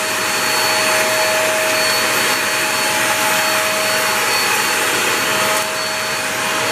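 Hoover React Professional Pet cordless stick vacuum running steadily on hard floor, its brush roll on slow speed: a rush of suction air with a constant high whine. The level dips briefly about five and a half seconds in.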